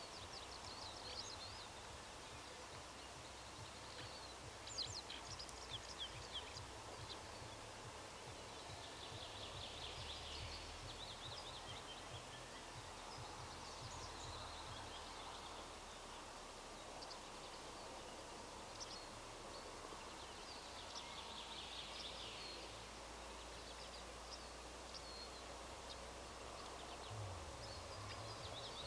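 Songbirds chirping and singing faintly on and off over a steady low rumble.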